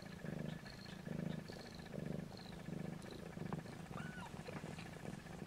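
Snowshoe Siamese mother cat purring in labour, a low buzz pulsing with each breath in and out. Thin high squeaks from her newborn kittens come in over it, some early on and a couple of short rising and falling cries a little after halfway.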